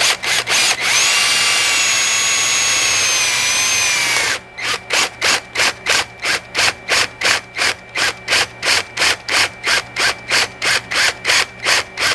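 Power drill with a Forstner bit boring into a 3D-printed plastic part. It runs steadily for about three seconds with a motor whine that dips slightly before it stops. For the rest it is pulsed in short bursts, about three a second.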